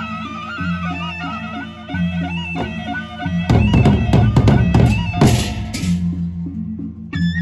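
Sasak gendang beleq ensemble playing: a high, wavering wind-instrument melody over a low drum pattern that repeats about every second and a half. From about three and a half to six seconds in, a burst of loud drumming and clashing handheld cymbals takes over.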